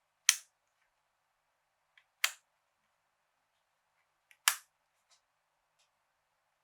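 Single keystrokes on a COX CK87 mechanical keyboard with Gateron brown switches: three sharp clacks about two seconds apart, each with a faint tick just before it, then a couple of faint ticks near the end.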